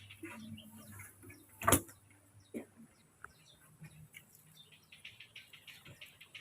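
A sharp knock about two seconds in, the loudest sound, and a softer one a second later, among many faint, quick high chirps that come thicker near the end.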